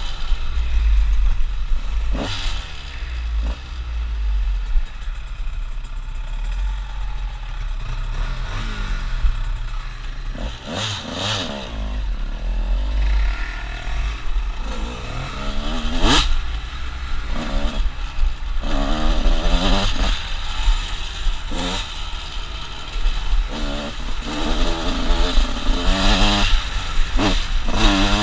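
Off-road vehicle engine revving up and down over and over on a rough trail, with wind buffeting on the helmet microphone and clattering over bumps. There is a sharp loud hit about halfway through.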